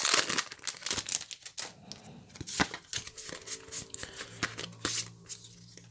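Trading-card packaging crinkling and cards being handled, a rapid run of small clicks and crackles that thins out toward the end. A faint low hum comes in about halfway through.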